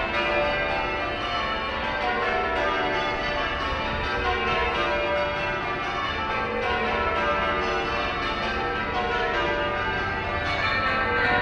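Full-circle church bells being change rung in a tower: a steady, unbroken stream of overlapping bell strokes, with no break between changes.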